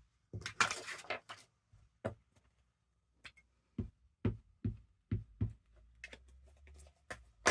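A craft stamp being inked and handled on a table: a brief rustle, then a series of light, irregularly spaced taps.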